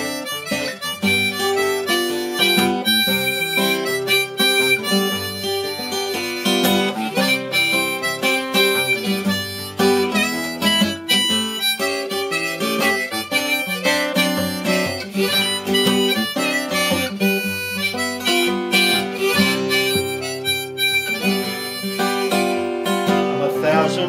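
Harmonica in a neck rack playing an instrumental break between verses, over an acoustic guitar accompaniment.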